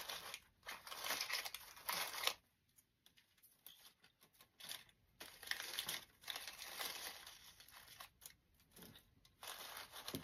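Dry grapevine and artificial leaves and flowers rustling as hands press a bird's nest into a wreath and work the stems around it, in irregular bursts with quiet gaps between.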